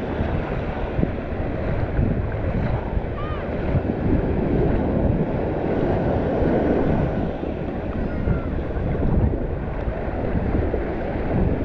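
Shallow surf washing and churning around the legs, with wind buffeting the microphone.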